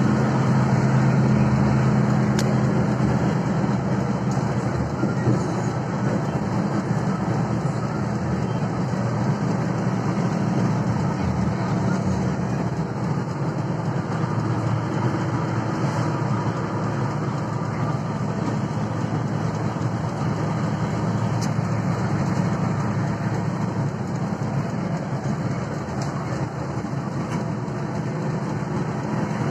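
Steady drone of an intercity coach bus heard from inside its cabin while driving at speed: engine and road noise together, with a low hum that is strongest in the first dozen seconds.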